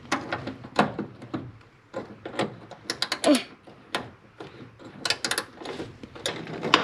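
Wrench turning the bolts that hold a Chevy C10 door to its hinges: a run of irregular metallic clicks and clinks as the bolts are loosened.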